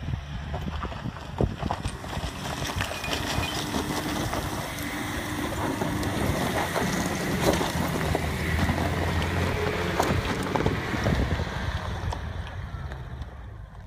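Suzuki Grand Vitara's diesel engine pulling under load as the 4x4 climbs a loose rocky slope, with stones crunching and clicking under the tyres. It grows louder as the vehicle comes close, then fades near the end as it drives away.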